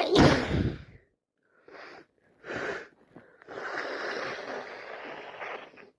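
A loud sneeze, then two short sniffs, then a long nose blow lasting over two seconds, from a person with a heavy head cold.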